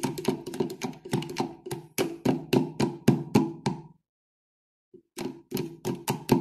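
Metal spoon clicking rapidly against the sides of a plastic tub, several clicks a second, as aspirin tablets are stirred into honey to dissolve them. The clicking breaks off for about a second about four seconds in, then starts again.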